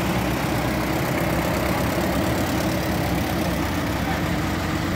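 Engines of red International Harvester farm tractors, including a Farmall, running steadily at a low, even speed as they drive past.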